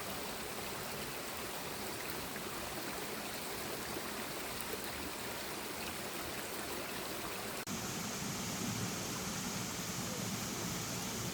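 Forest stream running steadily over rocks. About three-quarters of the way through, the sound changes suddenly to a fuller, deeper rush of water.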